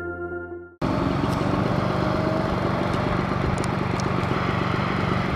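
Chime-like intro jingle tones, cut off under a second in by steady, dense outdoor noise with a low rumble and a few faint high clicks.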